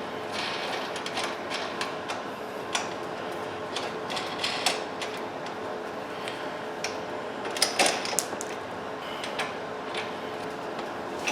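Scattered light clicks and knocks of small snow blower parts and hardware being handled during assembly, with a louder cluster of clatters a little before eight seconds in, over a faint steady hum.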